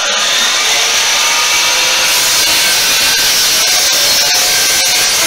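DeWalt sliding compound miter saw running, its spinning blade cutting steadily down through scrap wood.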